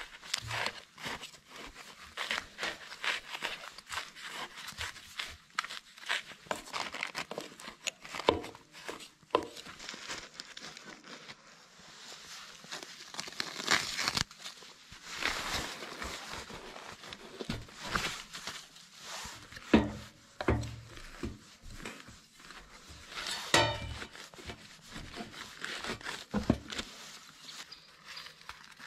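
Irregular rustling and crinkling, with scattered sharp knocks, as of things being handled at close range.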